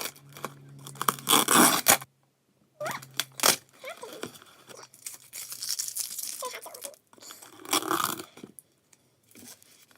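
Packaging being torn open by hand: several loud rips of paper or plastic, the longest about a second in, with crinkling between them and brief pauses.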